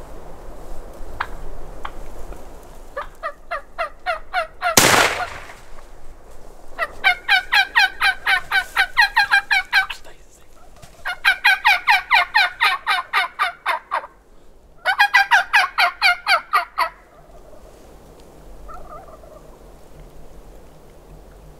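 Wild turkeys calling in rapid runs of evenly repeated notes: one short run, then three long runs of about three seconds each. About five seconds in there is a single loud bang, a shotgun shot.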